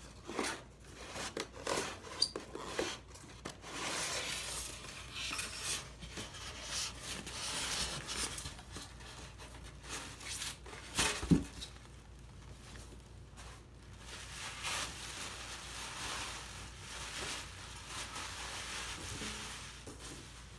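Ceiling fan parts and packaging being unpacked by hand: irregular rustling, rubbing and scraping with small clinks, and one sharp knock about eleven seconds in.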